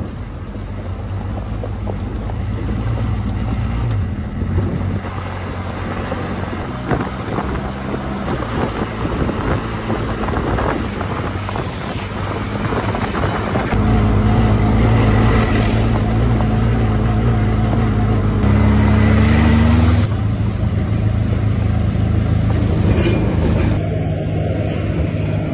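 Benelli TRK 502 X's parallel-twin engine running as the motorcycle rides along, with a steady rush of noise over it; it gets louder about halfway through.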